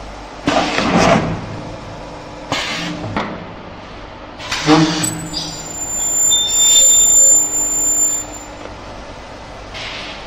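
Spin friction welding machine running through a cycle for water filter housings: three sharp pneumatic hisses, then a high-pitched whine for about three seconds while the spindle spins, over a steady machine hum, with a weaker hiss near the end.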